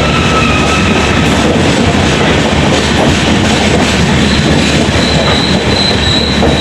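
Indian express passenger train running on the rails: a loud, steady rush of wheels and coaches, with a thin high whine coming in about four seconds in.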